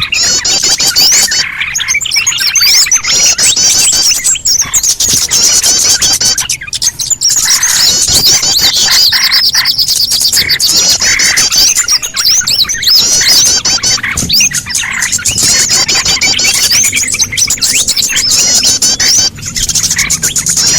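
Bird-lure recording of many small songbirds chattering and chirping at once, a dense, continuous stream of rapid high-pitched chirps.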